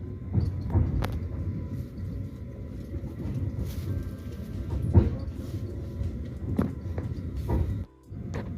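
Moving passenger train heard from inside: a steady low rumble with irregular sharp knocks and clacks from the wheels and carriage. The sound cuts out for a moment near the end.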